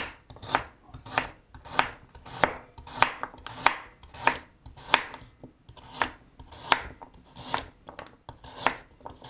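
Chef's knife slicing a carrot into rounds on a bamboo cutting board: a steady run of crisp knocks as the blade goes through and meets the board, about three cuts every two seconds.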